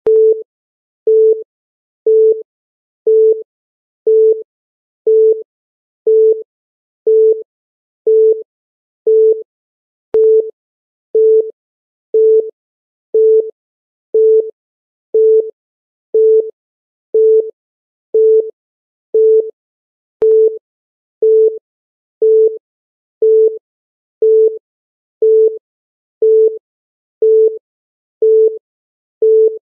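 Countdown timer beep: a short electronic beep on one pitch, repeated once a second with silence between, marking each second as the timer counts down.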